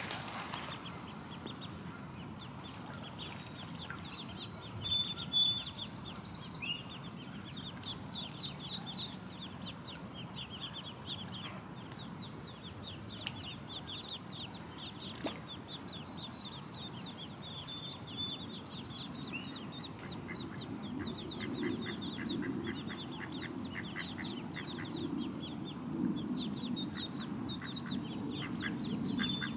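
Mallard ducklings peeping: a steady stream of short, high peeps, several a second, with a few louder calls about five seconds in.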